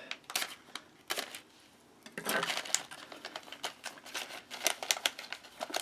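Crinkling and crackling of an MRE snack pouch being cut open with a small knife: a few clicks, a short lull, then from about two seconds in a dense run of sharp crackles and rustles.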